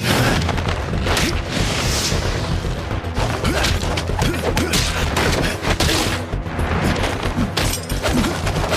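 Fight-scene sound effects: a rapid, dense run of blows, thuds and crashes over dramatic background music.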